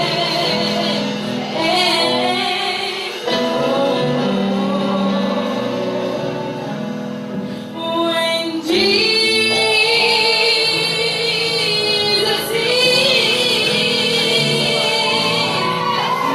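A young girl singing a gospel song solo, holding long wavering notes. The singing grows louder about halfway through.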